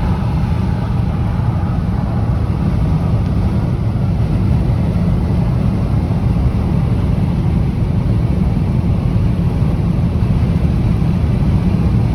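Strong gusting wind buffeting the microphone: a loud, steady, deep rumble that rises and falls slightly.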